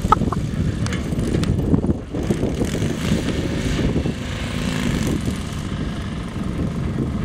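Off-road buggy's engine running hard as it is driven around a dirt track, heard from across the field, rising and falling with the throttle.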